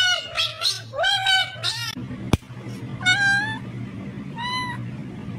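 Cats meowing: a quick run of short meows that rise and fall in pitch, then a sharp click, then two single meows about a second and a half apart.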